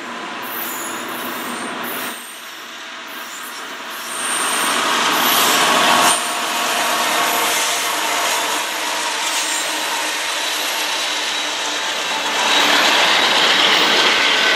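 CN manifest freight train with diesel locomotives passing close by: locomotives and then freight cars rolling over the rails in a steady noisy rumble. It gets louder about four seconds in and again near the end.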